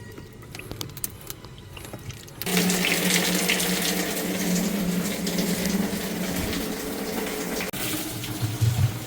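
Water starts running suddenly about two and a half seconds in and keeps flowing steadily, with a steady hum under it, as water is run onto ice inside a refrigerator to defrost the ice that has blocked it and stopped the lower part from cooling.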